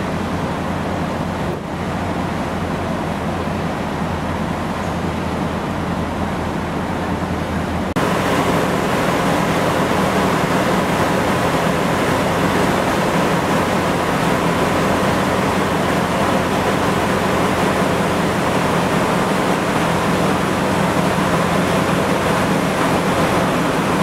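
Steady drone of a ferry under way, a low engine hum mixed with the rush of wind and sea water. About a third of the way in it jumps louder and hissier, with more wind and spray noise.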